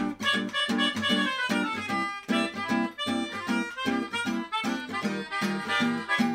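Background music: an acoustic guitar strumming a steady rhythm under a melodica playing the melody, with no singing.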